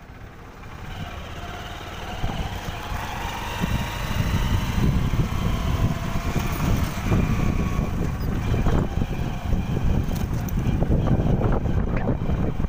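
A moving vehicle's road and engine noise with wind buffeting the microphone, building over the first few seconds and then staying steady.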